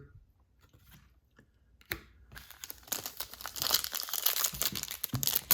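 Foil wrapper of a baseball card pack being torn open and crinkled, starting about two seconds in after a short quiet and a single click.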